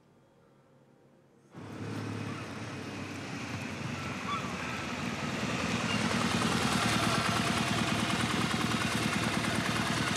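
Motorcycle engine running, starting suddenly about a second and a half in. It grows louder over the next few seconds, then runs steadily with a fast, even throb.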